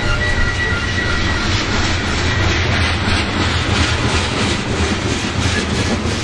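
Freight train rolling past with a steady low rumble, its wheels clicking in a regular rhythm over the rail joints from about halfway in. A quick repeating high tone fades out over the first second or two.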